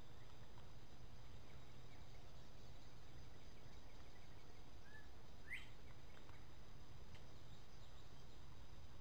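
Steady low background noise of the woods, with one short bird chirp, a quick rising note, about halfway through.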